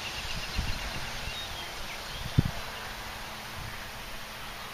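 Open-air rural ambience: a steady hiss with faint, short, high chirps scattered through it, and one dull thump about two and a half seconds in.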